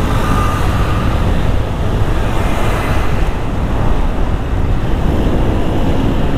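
Wind rushing over the rider's microphone while a Honda Vario 160 scooter is ridden at road speed, with its single-cylinder engine running underneath.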